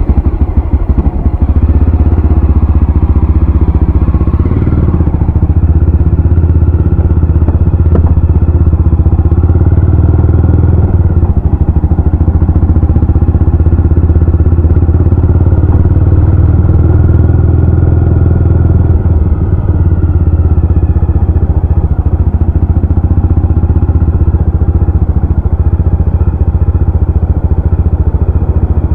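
Jawa RetroTrail 650 motorcycle engine running with a steady, deep low note, its revs swelling and easing a few times.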